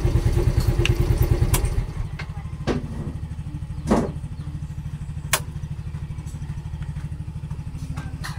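Motorcycle engine running, its quick low firing pulse easing down to a quieter steady idle about two seconds in, with a few sharp clicks along the way.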